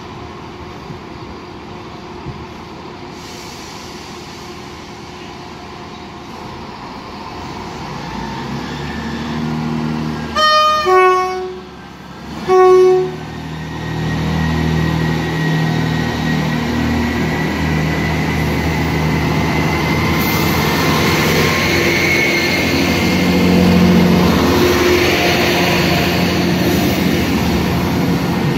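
Class 158 diesel multiple unit 158823 sounds its three-tone horn: a blast that drops in pitch partway, then a shorter note about a second later. Its diesel engines then open up and build steadily, with a thin rising whine, as it pulls away from the platform.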